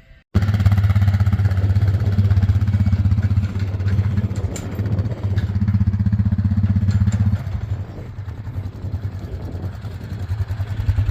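A vehicle engine running steadily with a strong low hum. It eases off and becomes quieter and more uneven about seven seconds in.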